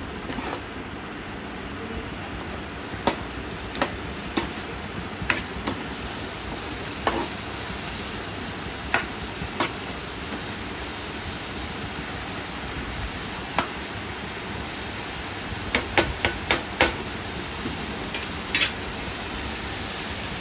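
Masala sizzling in a non-stick kadhai as a steel spoon stirs it, the spoon giving irregular sharp clinks against the pan, with a quick run of them about three-quarters of the way through.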